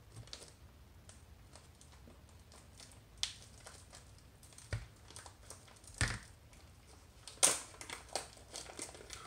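Plastic package of soft-plastic fishing baits being handled and pulled open: light crinkling and rustling with a few sharper crackles, the loudest about seven and a half seconds in.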